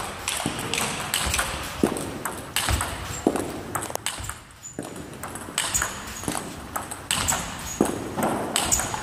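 Table tennis forehand topspin drill: the celluloid-type ball clicking sharply off the rubber bats and bouncing on the table, over and over at an uneven rally pace.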